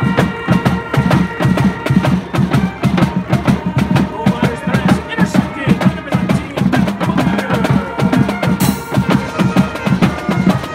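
A marching band in the stands playing a fast tune: a drumline of snares, tenor drums and cymbals beats out a busy rhythm under sustained brass, including a sousaphone. A cymbal crash comes near the end.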